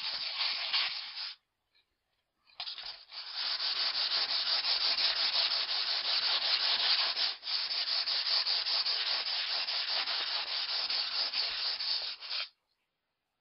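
Steel axe head being drawn over 600-grit wet-and-dry sandpaper on a foam mat, a steady scraping rasp: fine finishing of the axe's convex edge. The scraping breaks off about a second in, starts again after about a second, and stops shortly before the end.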